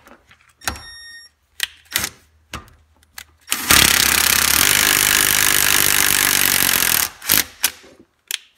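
Cordless Milwaukee impact driver hammering steadily for about three and a half seconds as it turns the screw of a bearing puller, drawing the bearing off a Denso hairpin alternator rotor shaft. Short clicks and knocks of the tool and puller being handled come before and after.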